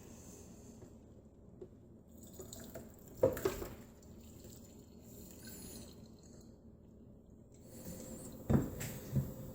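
Buttery cooked vegetables being spooned from a skillet into a strainer in a sink, with dripping and a couple of knocks of the spoon about three seconds in and again near the end.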